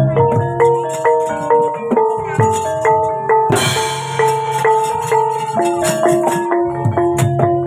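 Gamelan music accompanying a wayang kulit shadow-puppet play: metallophones strike a continuous run of ringing notes over regular drum strokes. A bright metallic crash comes about three and a half seconds in.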